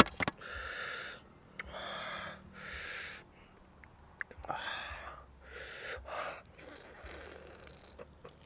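A person breathing out in a series of sharp, hissing puffs, each about half a second long, during the first six seconds. There are a couple of sharp clicks right at the start.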